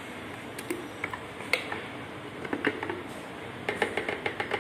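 A few scattered knocks, then from about three and a half seconds in a fast, even ticking as a handheld electric stirrer runs in a bucket of sugar syrup, churning it to mix in the flavour.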